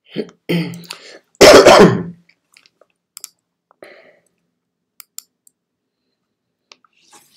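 A person clears their throat once, loudly, about a second and a half in, after two short soft sounds. A few light computer-mouse clicks follow.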